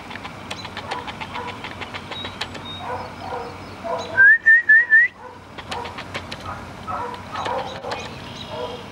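Four short, quick whistled notes, each rising slightly, a person whistling to call a dog.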